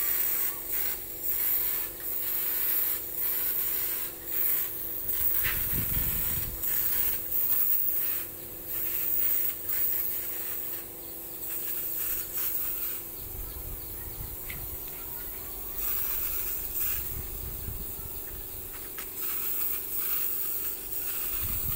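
Compressed-air hopper spray gun spraying textured paint onto a speaker cabinet: air hissing in repeated short spurts as the trigger is pulled and released, over a steady low hum.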